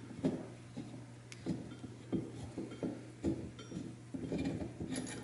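Faint, irregular clicks and light knocks of steel parts being handled as Allen bolts are backed out by hand from a transmission crossmember bracket and its cap.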